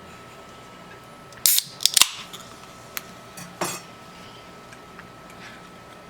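A few sharp snaps and clicks: a loud cluster of three about a second and a half to two seconds in, then a single click and another snap a second or two later.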